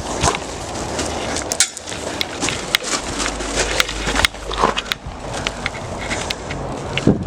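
Hurried footsteps crunching on loose ground, with irregular sharp clicks and knocks and rustling from a handheld camera.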